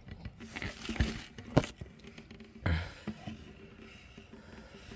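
Handling noises from the detached clear plastic dust bin of a Dyson DC01 vacuum: light scrapes and knocks, with one sharp click about a second and a half in.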